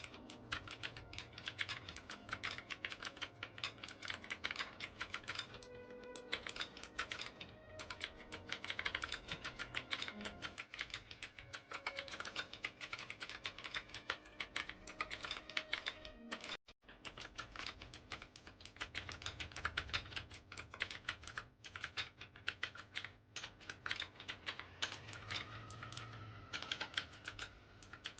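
Fast, continuous typing on a Tsunami MK68 mechanical keyboard with Outemu Blue clicky switches, a dense run of key clicks, with a brief pause at about two-thirds of the way through.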